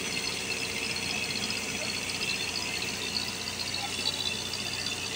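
Rice mill running steadily: an even machine hum with a dense, high hiss over it.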